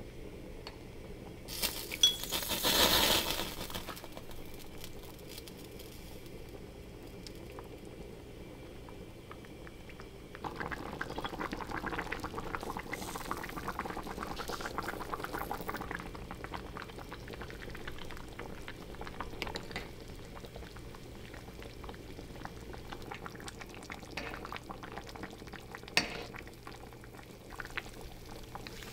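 Spicy soft tofu stew boiling hard in a black earthenware pot, a dense steady bubbling that starts about ten seconds in. Near the start a spoon splashes and clinks briefly while skimming off chili oil, and one sharp spoon clink on the pot comes near the end.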